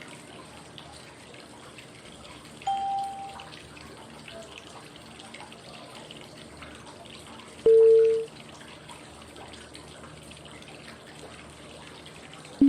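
Flowing-water white noise running steadily, with short cue tones exactly five seconds apart marking the inhale, hold and exhale phases of 555 breathing. Three tones sound, each lower than the one before; the middle one is the loudest, and the last starts right at the end.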